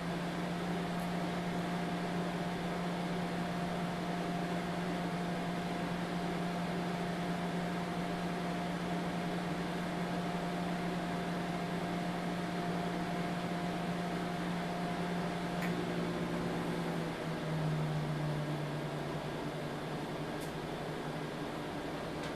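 Microwave oven running, set to half power, with a steady hum and a higher steady tone. About two-thirds of the way in, the higher tone stops with a click, and a little later the hum shifts slightly.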